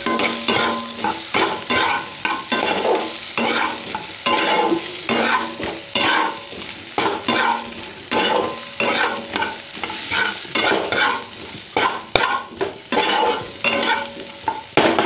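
A spatula stirring and scraping spice-coated potato cubes around a frying pan in repeated strokes, roughly two a second, over the sizzle of the frying oil.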